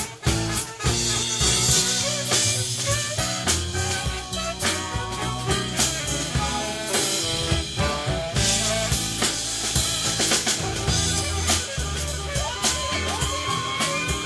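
Live band playing in a small club: drum kit with snare and rimshot hits over bass, guitars and keyboards. Near the end, whoops and cheers from the audience rise over the music.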